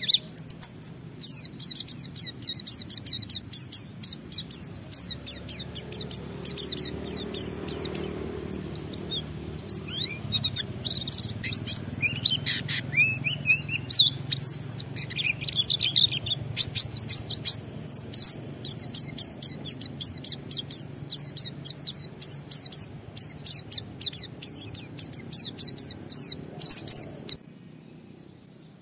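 White-eye (pleci) singing a long, fast run of short high chirps, with some varied warbling phrases in the middle; the song stops near the end.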